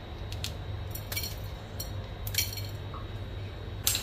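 Kitchen scissors snipping a dried red chilli, with the pieces dropping into a steel bowl: several short, sharp clicks and clinks at irregular intervals.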